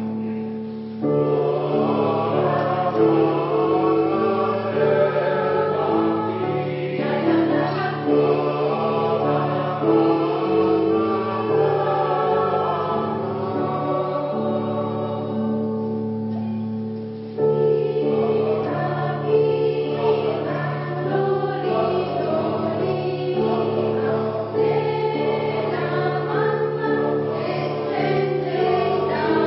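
Polyphonic choir singing in several parts, chords held and moving together. The voices drop back briefly about 17 seconds in, then come in louder again.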